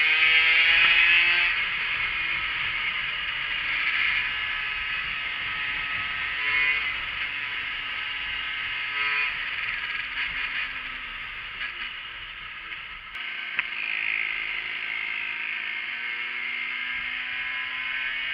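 Engine of a 50cc Yamaha moped revving up over the first second, then slowly dropping in pitch as it runs along. There is steady wind rush on a helmet-mounted microphone. About two-thirds of the way through, the sound changes abruptly to another stretch of riding, where the engine note climbs slowly again.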